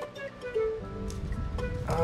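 Background music led by a plucked string instrument, playing single notes.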